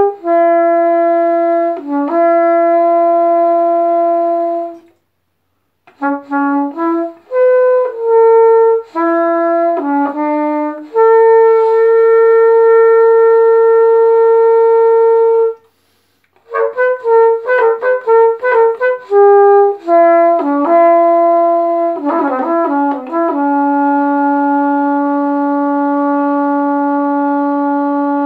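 Solo trumpet-family brass horn playing an unaccompanied melody: quick runs of short notes alternating with long held notes, broken by two short pauses about five and sixteen seconds in, and ending on a long held note.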